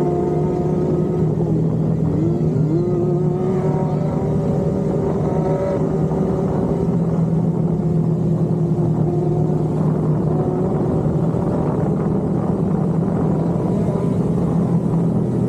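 Sport motorcycle engines running steadily at cruising speed as a group rides together, with the camera bike's engine giving a steady drone. About two seconds in, its pitch briefly dips and climbs back up.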